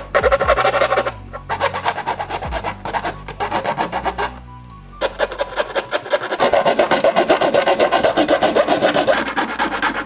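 Fast, rapid scraping of a tool against hard plastic as a hole in a car dashboard panel is worked out, with two short pauses, about a second in and again around four to five seconds in.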